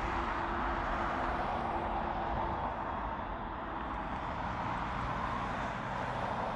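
Airliner engine noise, a steady rumble and hiss with a faint hum that fades out about two and a half seconds in.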